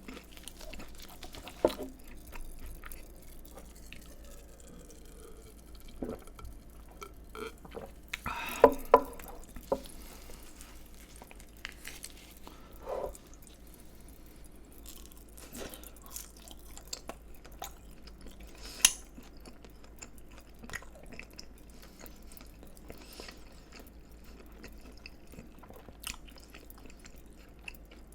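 Close-miked chewing of crispy fried food, wet mouth sounds broken by sharp crunches, with a cluster of loud crunches about a third of the way in and another loud one about two-thirds in.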